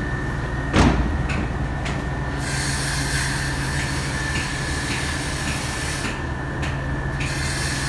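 Steady machinery drone with a low hum and a thin, high steady whine, and a single knock just under a second in.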